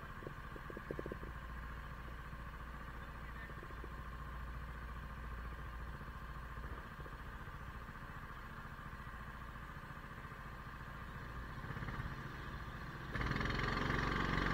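Go-karts idling with a steady hum while stopped. About thirteen seconds in the sound steps up louder as the karts pull away.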